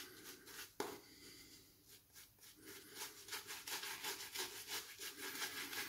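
Semogue 820 boar-bristle shaving brush scrubbing lather onto a bearded face: a faint bristly rubbing. It comes in a few strokes at first, then in quick repeated strokes, several a second, from about halfway through.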